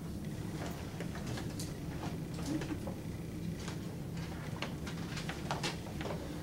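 Dry-erase marker tapping and squeaking against a whiteboard in short, quick strokes, over a steady low room hum.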